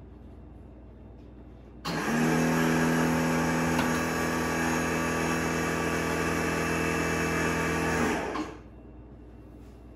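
A small electric motor spins up about two seconds in, runs steadily at one pitch for about six seconds, then winds down, leaving a low background hum.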